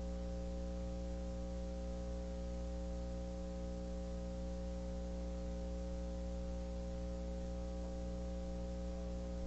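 Steady electrical mains hum, a buzz with many overtones over a faint hiss, holding at one level throughout.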